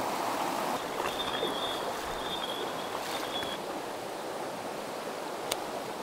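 Mountain stream water rushing steadily. A faint high thin tone comes in for a couple of seconds in the middle, and there is a single sharp click near the end.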